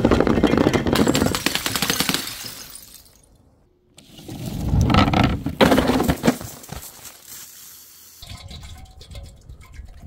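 Glass bottles shattering in two long crashing bursts of breaking and tinkling glass, the second starting about four seconds in, followed by fainter scattered clinks.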